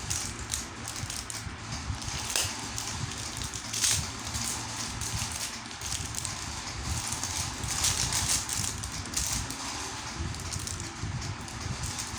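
Handling noises from unboxing a stainless-steel chain-strap wristwatch: scattered clicks and rustling, louder about 4 and 8 seconds in, over a low steady rumble.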